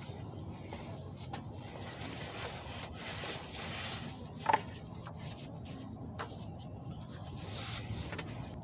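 Faint rubbing and shuffling from someone moving and handling things, with one sharp click about halfway through.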